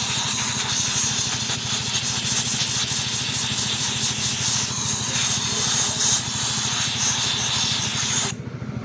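Compressed-air blow gun hissing as it blows dirt out of a fuel pump's filter screen, stopping abruptly near the end. Under it, a machine runs steadily with a low pulsing beat.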